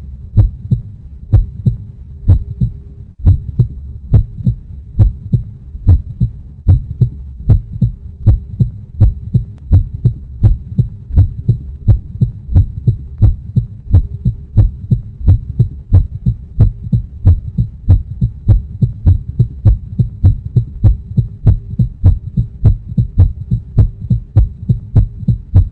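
Heartbeat sound effect: steady, regular low thumps of a beating heart over a continuous low hum.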